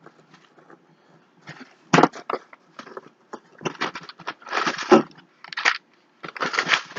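Packing material crackling, crumpling and tearing in irregular spells with a few sharp clicks, as a shipping box is unpacked by hand.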